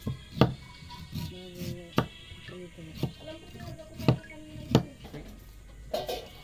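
Kitchen knife chopping peeled bamboo shoot on a thick wooden chopping board: sharp knocks about once a second as the blade strikes the wood. Background music plays underneath.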